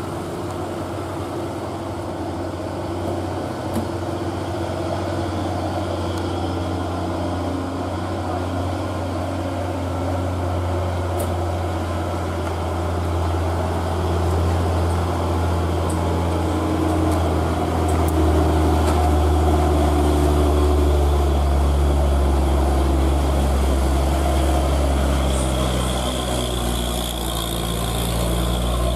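Heavy diesel truck engines running at low revs as trucks climb a steep hairpin, a steady deep drone that grows louder past the middle as a truck comes close.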